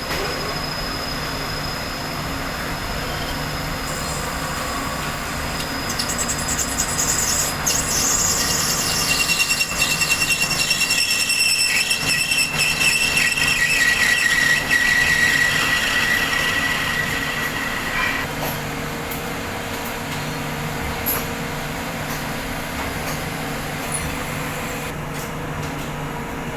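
Lathe running with a steady motor hum. Through the middle stretch a cutting tool squeals on the workpiece, loud and high-pitched with scratchy crackle, stepping down in pitch before it stops about two-thirds of the way through.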